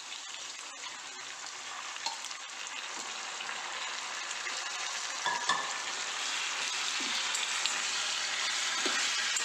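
Raw chicken pieces sizzling in hot oil with browned onions in a pot, the sizzle growing steadily louder. A few short knocks come about halfway through, and near the end a metal ladle stirs the pieces.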